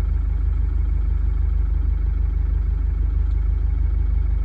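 Light truck's engine idling, heard from inside the cab: a steady low drone with a fast, even pulse.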